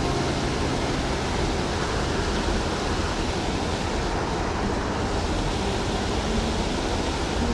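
Water rushing over a small spillway: a steady, even rush with no breaks.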